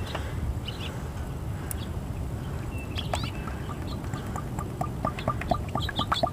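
Motor oil pouring from a bottle through a funnel into the engine's oil filler, with a quick run of gurgling glugs in the last couple of seconds as air bubbles back into the bottle.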